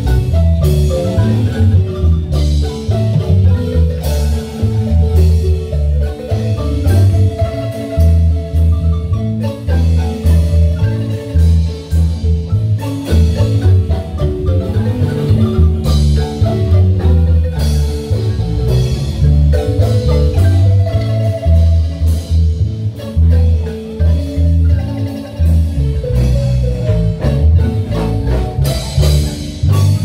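Live marimba band playing dance music: mallets running quick melodic lines on the wooden bars over a steady, strong bass line, with percussion hits.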